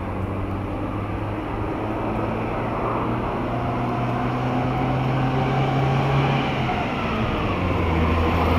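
Car engine and road noise heard from inside the car as it drives through town. The engine note climbs slowly as the car speeds up, dips about seven seconds in, then climbs again.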